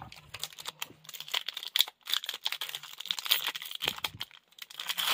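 Foil wrapper of a Pokémon trading-card booster pack crinkling in the hands, a dense run of quick, sharp crackles as the pack is handled.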